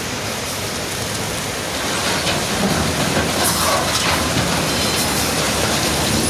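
Wheel loader running under load, a steady machine noise with clattering that grows louder about two seconds in.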